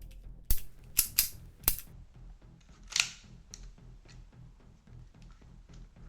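Swiss Arms Beretta 92 replica air pistol giving a quick series of sharp clicks and pops: four in under two seconds, then a single louder, airier pop about three seconds in, with a few faint ticks after.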